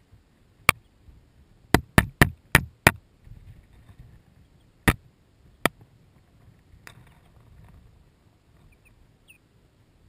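Sussex chicks pecking with their beaks at the camera: one sharp tap, then a quick run of five taps about two seconds in, then two more taps around five seconds. A faint short peep comes near the end.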